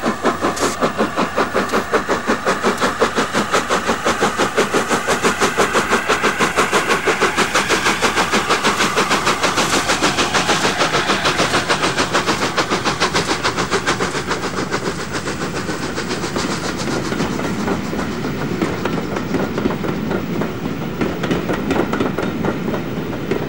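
LNER A4 Pacific steam locomotive 60009 Union of South Africa passing with its three-cylinder exhaust beating in a fast, steady rhythm. After about halfway the beats ease and the rumble and clickety-clack of the coaches rolling by take over.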